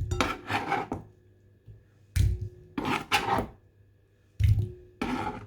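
Chopped pineapple being scraped off a cutting board into a bowl: three rounds of scraping and rubbing, each beginning with a knock.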